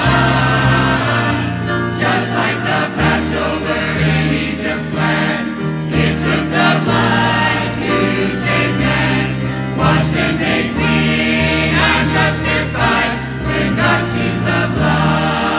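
Church choir singing a gospel hymn in full voice.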